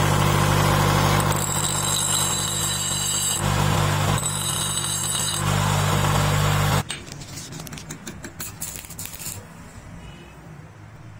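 Electric bench grinder running with a steady hum while a steel adjustable wrench is ground against the wheel in two spells, each adding a high, hissing grinding sound. The grinder sound cuts off suddenly about seven seconds in. Quieter, irregular clicking and crackling follow as a stick-welding rod is struck.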